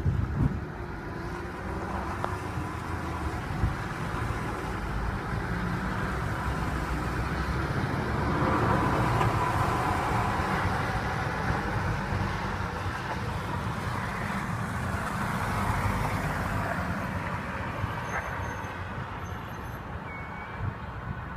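Road traffic on a wet, slushy street: steady tyre hiss and engine rumble, swelling about eight to eleven seconds in as a lorry drives past, then fading.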